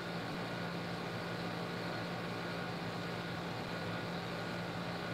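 Steady room tone: a constant low hum over an even hiss, with no change.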